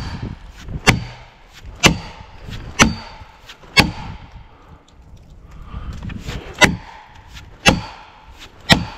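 An axe's poll hammering a plastic felling wedge into the back cut of a pine to wedge the tree over. Sharp strikes come about once a second, with a pause of a few seconds midway.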